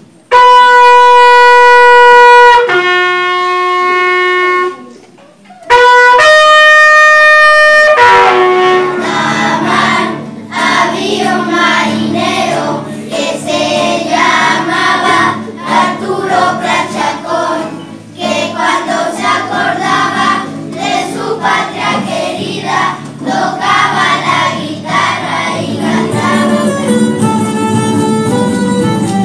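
A bugle sounds a call of three long held notes, the second lower and the third higher than the first, with short breaks between them. Then a group of children sings, with the music changing shortly before the end.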